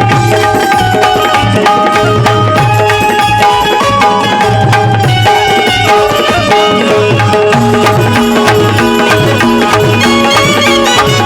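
Instrumental passage of live Marathi Bhimgeet folk music. Tabla-style hand drums keep a steady rhythm under a melody of held notes, with no singing.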